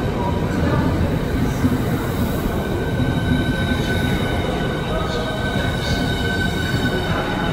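Southeastern Class 395 Hitachi electric multiple unit moving along the platform: a steady rumble of wheels on rail with a high whine held on a few steady pitches.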